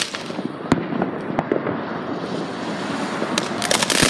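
Ground fountain firework spraying sparks: a steady crackling hiss with scattered sharp pops, growing louder and harsher near the end.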